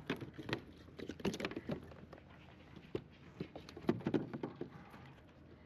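Scattered light taps, clicks and knocks at an irregular pace: handling noise on a kayak while a small flounder that has just been caught is dealt with.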